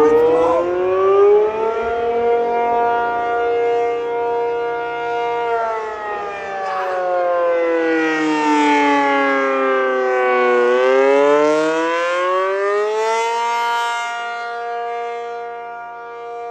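ACA P-50 electromechanical outdoor warning siren sounding the attack signal, a wavering tone. Its pitch climbs for the first two seconds and holds, slides down over about five seconds, climbs again, holds, and begins to fall near the end.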